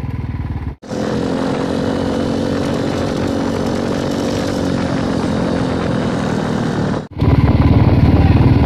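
Motorcycle engine running as the bike is ridden, heard in three edited pieces broken by brief dropouts about a second in and near the end; the last piece is louder, with a deep engine throb.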